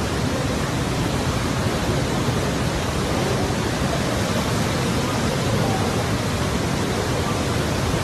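Floodwater of a mountain river in spate rushing past in a steady, loud, unbroken wash of noise.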